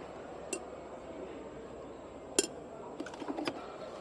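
Hard items clinking as they are handled: a light click about half a second in, a sharp loud clink about two and a half seconds in, then a quick run of smaller clinks near the end, over a steady background murmur.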